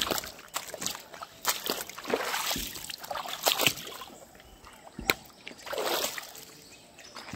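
Water splashing and sloshing in a shallow river as a trammel net with fish in it is hauled in, in several irregular surges, with a sharp knock about five seconds in.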